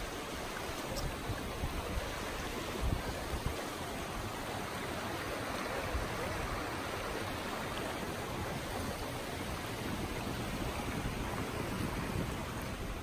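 Shallow, fast-flowing river rushing over stones, a steady, even rush of water.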